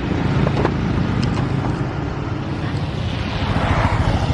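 A large road vehicle's engine running as it passes, with a steady rush of road noise. No horn sounds.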